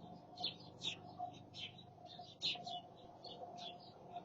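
Small birds chirping: a quick, irregular series of short, high chirps that sweep downward in pitch, over a faint steady background hum.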